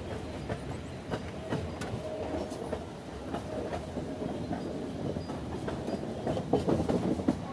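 Passenger train's coach wheels rolling on the track, with a steady rumble and irregular clickety-clack over rail joints, heard from an open coach doorway as the train rounds a curve.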